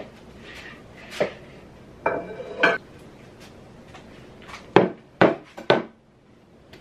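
Cookware being handled: dishes and pans clinking and knocking, with a brief ringing clatter about two seconds in and three sharp, loud knocks in quick succession near the end.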